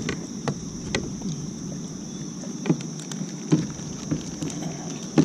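Irregular knocks and clunks of gear and handling against a fishing kayak, about half a dozen, the loudest near the end, over a steady high drone of insects.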